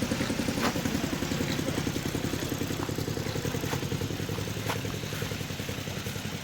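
A small engine running steadily with a fast, even chugging that fades slightly, with a few faint clicks over it.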